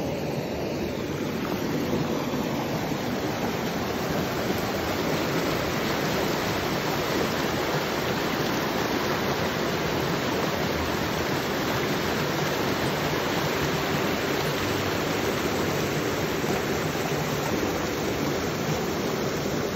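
A partly frozen mountain stream rushing over rocks between shelves of ice, making a steady rush of water.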